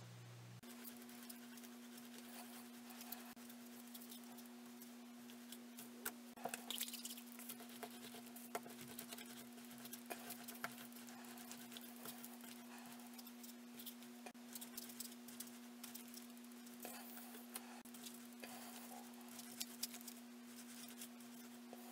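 Faint, irregular pattering and scratching of hands rolling soft clay coils on brown paper, sped up to double speed, over a steady electrical hum.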